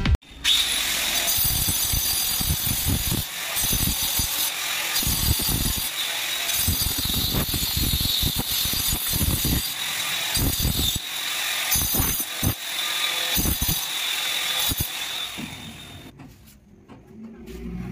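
Handheld electric angle grinder running with a steady high whine, its abrasive disc grinding the edge of a ceramic floor tile. Near the end it is switched off and winds down.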